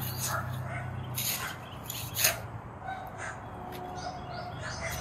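Hand trowel digging into garden soil in short scraping, chopping strokes, the sharpest about two seconds in, with a bird calling in the background.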